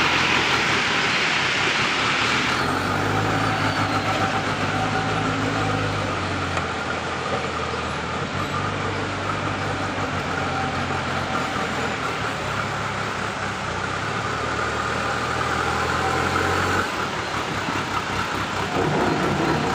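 JCB 2DX backhoe loader's diesel engine running under load, its note rising and falling every few seconds as the loader scoops and lifts. Loose soil hisses as it pours from the bucket into the truck's steel bed, during the first two seconds and again near the end.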